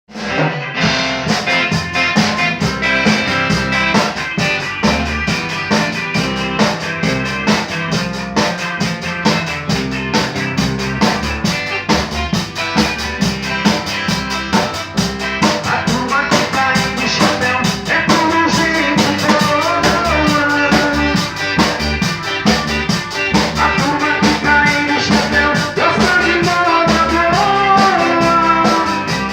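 Instrumental intro of a band's song: a drum kit keeps a steady beat under guitar and bass. About halfway in, a lead melody line with bending notes comes in on top.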